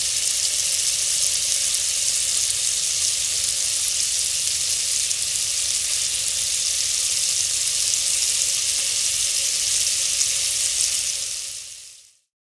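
Melting ice fizzing and crackling: a steady high hiss full of tiny pops that fades out near the end.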